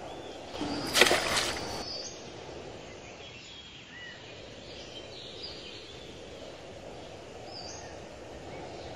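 A loud burst of noise lasting about a second, near the start, then steady outdoor background noise with short bird chirps scattered through it.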